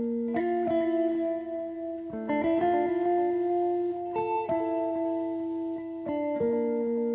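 Background music: guitar chords ringing out and changing about every two seconds.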